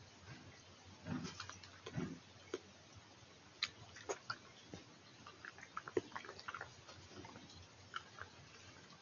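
Badger snuffling and sniffing through grass: short puffs of breath mixed with irregular crackles and clicks as it roots and moves in the vegetation.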